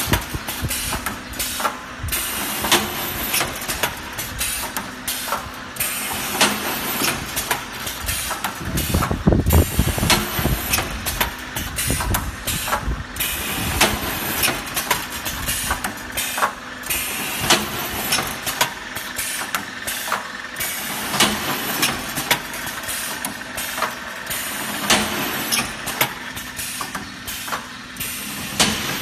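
Automatic brick force wire mesh welding machine running: its pneumatic welding heads clack again and again, irregularly, over a steady machine hum, with a heavier rumble about nine seconds in.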